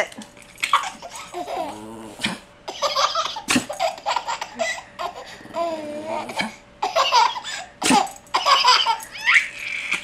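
A baby of about six months laughing hard in repeated bursts of belly laughs and giggles. Twice, about four seconds apart, a small dog gives a short sharp sneeze, and the baby laughs at it.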